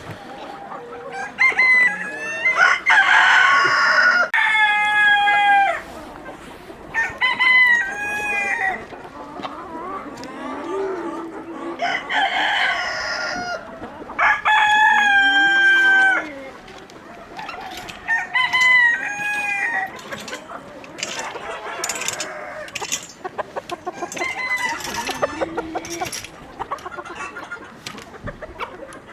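Chickens calling: roosters crowing in two long calls, one a couple of seconds in and one near the middle, with hens clucking in shorter calls in between and a run of sharp clicks in the later part.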